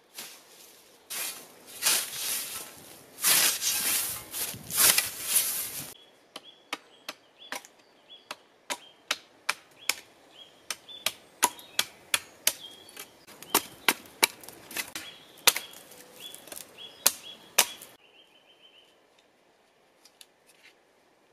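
Scythe swishing through tall grass in about half a dozen strokes, then a steady run of sharp wooden knocks, roughly two a second, as a blade chops at a stick held on a log chopping block; the knocks stop about four seconds before the end.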